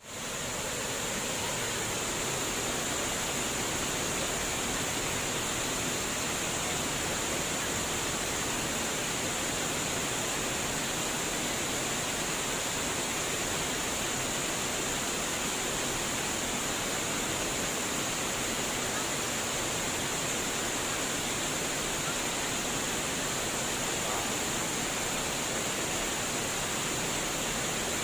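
Flowing water babbling and splashing in a steady, unbroken rush, fading in at the very start.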